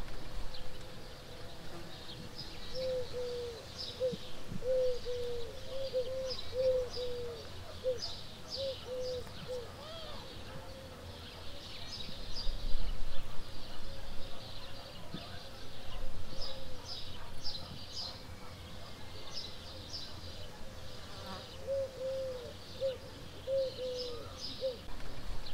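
Birdsong: one bird repeats short, low, hooting notes in runs, over many high chirps and twitters from other birds. Low wind rumble swells on the microphone about halfway through.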